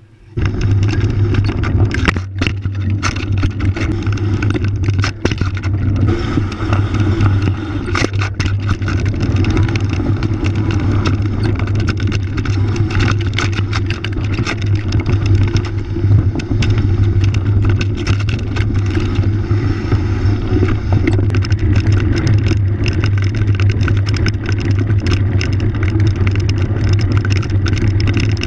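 Mountain bike being ridden over dirt and gravel trail, heard from a camera mounted on the bike: a steady noise of wind and knobbly tyres rolling, broken by frequent knocks and rattles as the bike goes over bumps.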